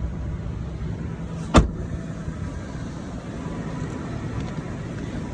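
Toyota Tacoma pickup's engine idling with a steady low rumble, and a single sharp knock about one and a half seconds in.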